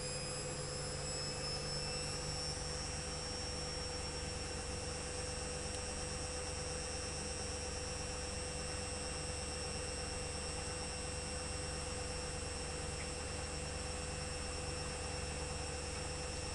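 Electrolux EWS 1045 front-loading washing machine running at a steady speed: a high, steady motor whine over a low hum. The whine rises slightly in pitch over the first couple of seconds, then holds.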